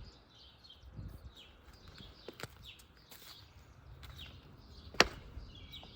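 Birds chirping repeatedly in the background, with a few light clicks and one sharp click about five seconds in.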